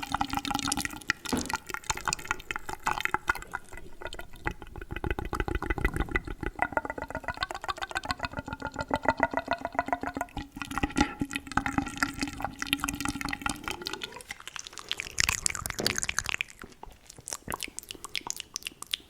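Fast, wet mouth sounds close to the microphone: rapid tongue clicks and lip smacks in a dense stream. Under them runs a steady hum from the voice that glides up in pitch about three-quarters of the way through.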